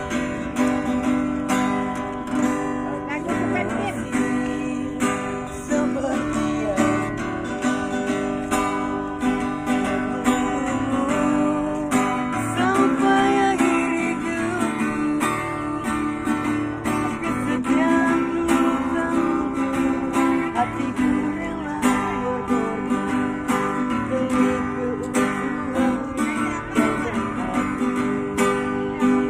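Acoustic guitar strummed in a steady, even rhythm, playing a song's chords.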